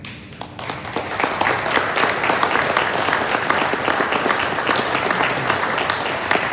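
Audience applauding, building up over the first second and then holding steady, in a large room.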